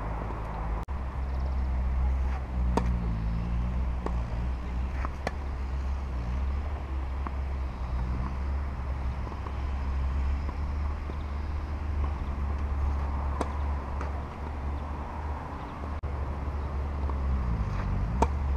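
Steady low traffic rumble with a vehicle engine passing. Over it come a few sharp knocks of a tennis ball bouncing on the clay, and a racket striking the ball on a serve near the end.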